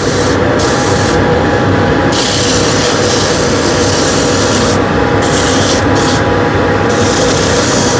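Sandpaper rubbing on a turned wooden bird-feeder part, in stretches of hiss that come and go, over the steady hum of a running dust extractor.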